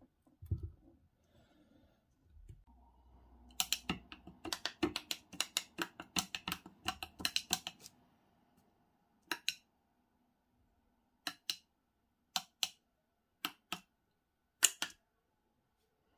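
Small push buttons on a circuit board clicking as they are pressed: a quick run of clicks for several seconds, then a few separate clicks, some in press-and-release pairs, with the loudest one near the end.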